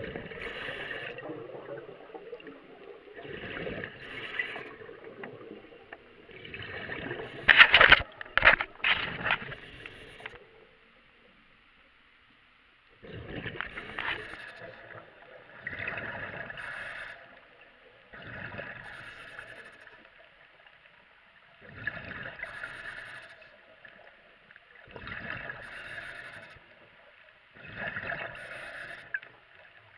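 Scuba diver breathing through a regulator underwater: a rush of exhaled bubbles about every three seconds, with quieter gaps between. A cluster of sharp, loud knocks comes about eight seconds in, followed by a longer pause.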